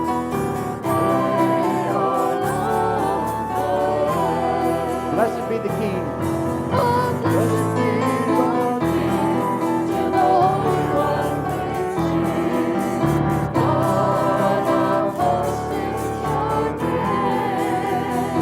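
Worship music: voices singing a slow praise song over instrumental accompaniment, the held low notes and chords changing every second or two.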